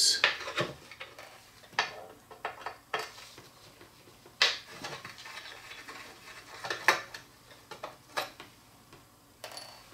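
Small Phillips screwdriver undoing the cover screws of an electronic filter wheel's metal top plate: scattered light metallic clicks and clinks, about half a dozen sharp ones roughly a second or more apart, as the screwdriver tip and small steel screws touch the metal.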